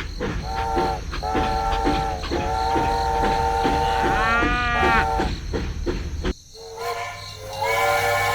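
A multi-tone horn with a train-horn-like chord sounds in several long blasts, its pitch swooping up and down about halfway through. Under it runs a steady chugging engine rumble with regular knocks.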